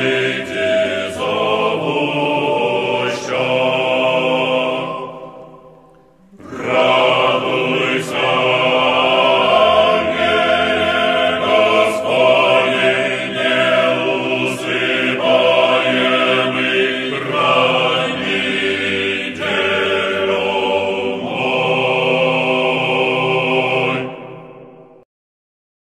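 Church choir singing a slow, sustained chant. The singing dies away about five seconds in, starts again a second later, and fades out shortly before the end.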